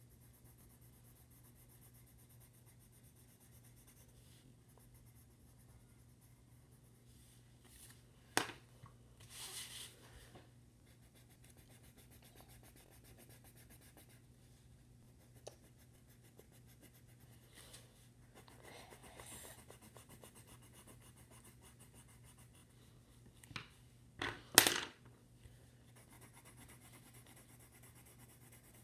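Colored pencil scratching on paper in a few short spells of shading, with several sharp taps on the tabletop, the loudest a quick pair near the end.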